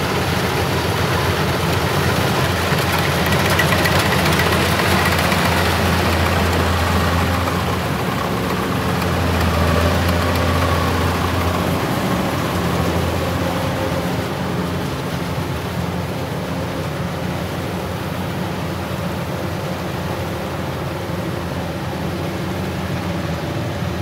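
Rice combine harvester's engine running steadily under load as it cuts, with a deep hum. It is loudest in the first half as the machine passes close, then eases off a little.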